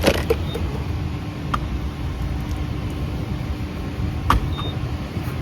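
Steady low road rumble inside a moving car's cabin, with a faint constant hum and a few sharp knocks or clicks.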